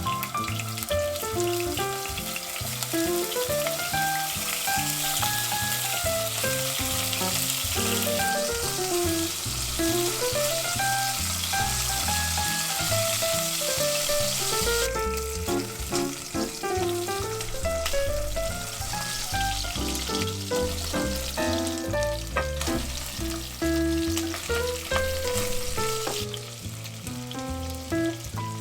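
Food frying in hot fat in a pot, a steady sizzle that shifts in strength a couple of times, under background music playing a melody.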